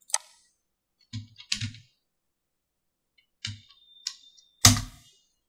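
Typing on a computer keyboard: a few separate key clicks and short runs of keystrokes, the loudest strike near the end.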